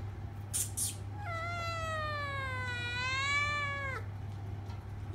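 Siamese kitten giving one long, drawn-out meow that wavers slowly in pitch and drops at the end, after two short breathy puffs of noise.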